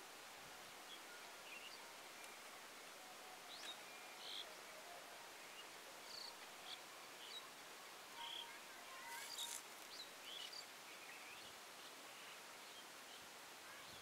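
Quiet outdoor ambience: a faint steady hiss with scattered short, high bird chirps, and a brief rustle about nine seconds in.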